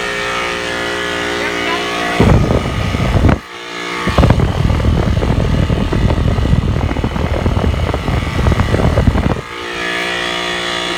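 Outdoor air-conditioner unit running with a steady, many-toned hum, broken for most of the middle by loud, fluttering rushing noise, like moving air buffeting the microphone, with a brief drop just after three seconds in.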